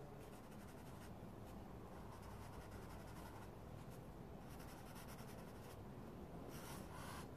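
Faint, intermittent scratching of a pencil shading on paper.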